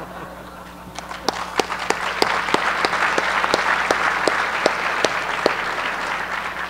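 Banquet audience applauding, many hands clapping; the applause swells about a second in and thins out near the end.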